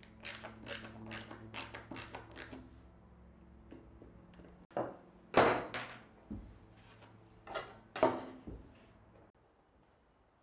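Hand tools working on an old solid-wood door: a quick run of about seven short scraping strokes, then a few separate knocks and clatters of tools against the wood, the loudest about halfway through.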